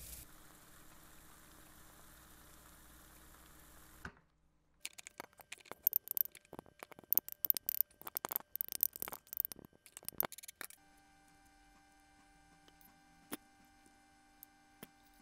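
A faint frying sizzle, which stops about four seconds in. Then a run of sharp clicks and scrapes for several seconds: a plastic rice paddle scooping cooked rice from a rice cooker's inner pot onto a ceramic plate. After that only a faint steady hum with a few small clinks.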